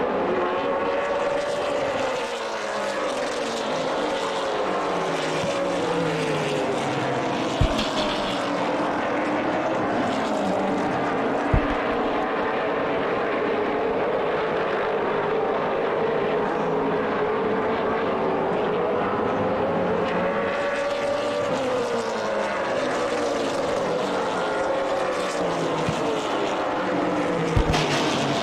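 Super late model stock cars' V8 engines running at part throttle as the field circles on warm-up laps, several engine notes rising and falling in pitch as cars pass and come off the corners. A few sharp knocks, about 8 and 12 seconds in and again near the end.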